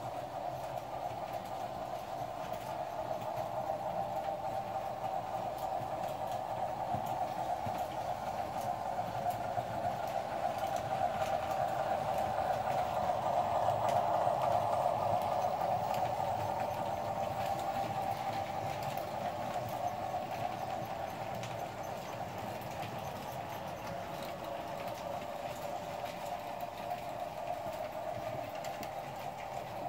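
American Flyer S-gauge Baldwin switcher with stock cars running on three-rail track: a steady hum with fast, light clicking of wheels over the rail joints. It grows louder as the train passes close about midway, then fades.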